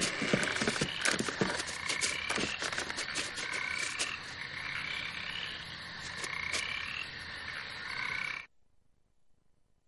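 Dense chorus of frogs croaking, with clicking calls and short rising chirps repeating every second or so. It cuts off abruptly about eight and a half seconds in, leaving near silence.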